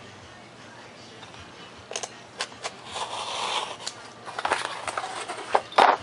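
A blade being drawn along a ruler through Elmer's foam board with a scratchy, crackling sound, mixed with clicks and knocks as the ruler and board are handled. A sharp knock comes near the end.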